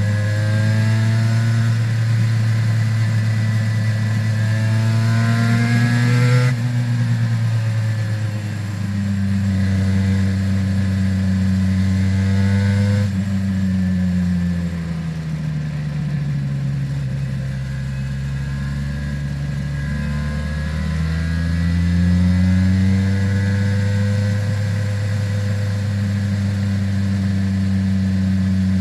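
Aprilia RS 250's two-stroke V-twin with Arrow exhausts, heard while riding: the engine pitch climbs for about six seconds, drops suddenly, holds steady, then sags slowly through the middle before rising again and settling.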